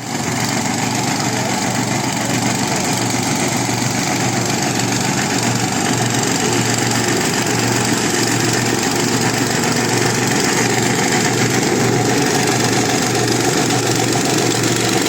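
Stubble mower's engine running steadily at a constant speed, loud and even.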